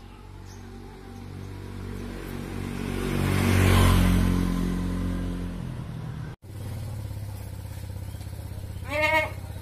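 A motorcycle approaching and passing close by, its engine getting louder to a peak about four seconds in and then fading. Near the end a goat bleats once, briefly.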